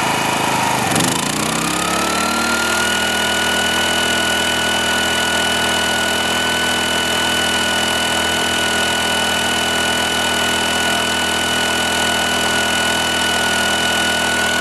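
Portable generator's small petrol engine speeding up about a second in as the load is switched to high, its pitch rising for a second or so and then holding steady as it runs under load.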